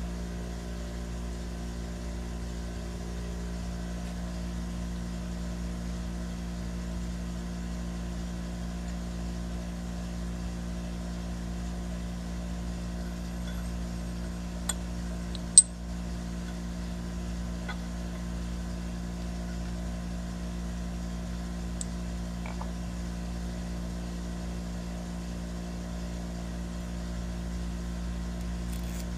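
A steady low machine hum, with a few sharp clicks of metal parts knocking together as aluminium air-bushing housings and the spindle shaft are handled and fitted; the loudest click comes about halfway through.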